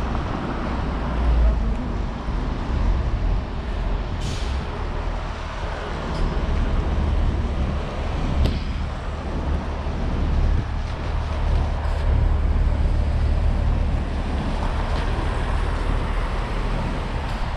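City street traffic: a steady low rumble of passing road vehicles, with a few short high hisses or squeaks over it.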